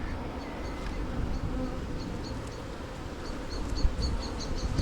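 Honey bees buzzing around an open hive as its frames are inspected, a steady hum.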